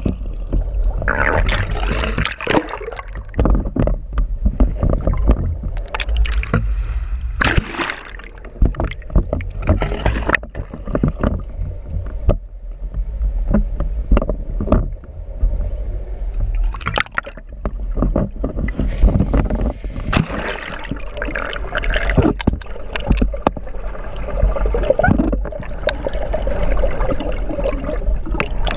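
Sea water sloshing and gurgling around a camera held just below the surface, with irregular splashes and knocks over a steady low rumble.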